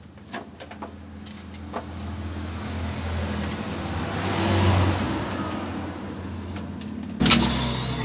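Plastic clicks from handling a DX Desire Driver toy belt, then a swelling electronic sound effect from the toy's speaker that builds to a peak a little past the middle and fades away. Near the end a sharp, loud click as the Monster Raise Buckle is snapped into the driver.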